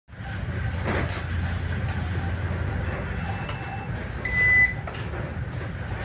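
Steady low hum of a navy patrol ship's engines and machinery heard aboard while it is underway, with a few light knocks and rattles. A short high electronic beep sounds about four seconds in.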